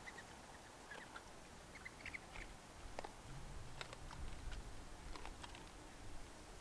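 Feral hog eating feed under a game feeder: faint, irregular crunching clicks, with a few faint high chirps about two seconds in.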